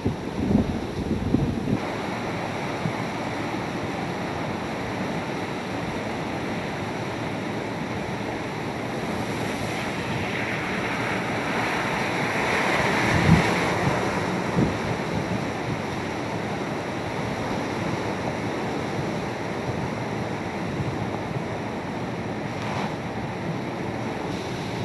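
Hurricane-force wind and heavy rain, with wind buffeting the microphone in gusts in the first couple of seconds. About halfway through, a pickup truck drives through standing water, and its tyres throw up a rising hiss of spray.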